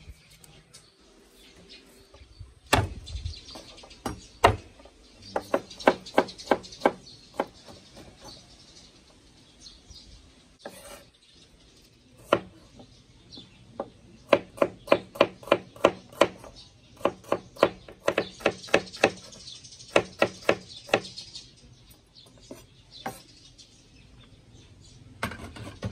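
Knife chopping on a cutting board in quick runs of strokes, about four or five a second, with a few single heavier knocks. Birds chirp faintly in the background.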